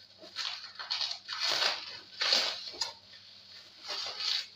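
Bubble wrap and plastic packing crinkling and tearing as a taped bundle is pulled open by hand: about six irregular rustling bursts with short pauses between them.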